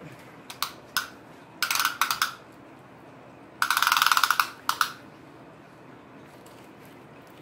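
Retractable steel tape measure being pulled out: a few clicks, then two rattling pulls of the metal blade out of its case. The longer, louder pull comes about three and a half seconds in and lasts nearly a second.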